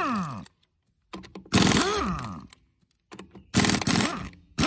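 Kobalt air impact wrench hammering on a car's lug nuts in three short bursts, each whine falling in pitch as the trigger is let go, with a few sharp clicks in the gaps between. The wrench is running on the extra air volume of an added auxiliary tank.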